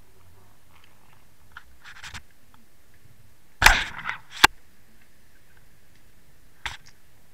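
A few sharp knocks and clicks heard underwater through a camera housing. The loudest is a short burst about three and a half seconds in, with a single sharp click just after it; fainter ticks come about two seconds in and one more near the end.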